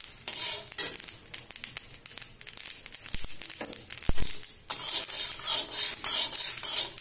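Flat metal spatula scraping across a dry metal kadhai, pushing dry-roasted whole spices around: dry rattling and rasping strokes with no oil sizzle. A dull low thump comes about four seconds in, and the scraping is louder over the last two seconds.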